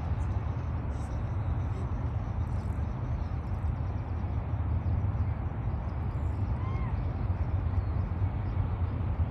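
Steady low outdoor rumble, with one faint short arched bird call about seven seconds in.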